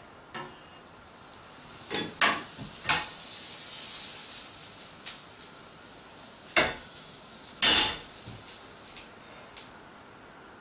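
Butter sizzling as it melts in a hot frying pan. A few sharp clatters of the pan and metal utensils cut through the hiss, which fades out near the end.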